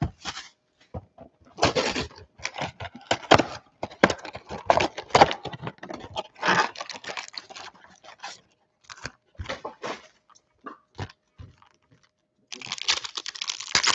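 Plastic shrink-wrap crinkling and the cardboard of a Panini Select football card box tearing and scraping as it is unwrapped and opened, in many small irregular crackles and clicks. Near the end, the box's foil-wrapped packs rustle steadily as they are handled and set down.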